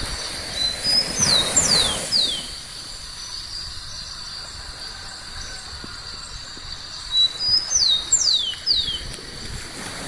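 Small waves washing up on a sandy shore, with a bird calling twice, each call a short run of quick falling whistles: one about a second in and another about seven seconds in.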